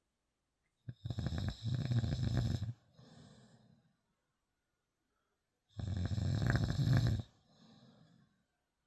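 Snoring: two loud snores about five seconds apart, each followed by a softer, shorter breath out.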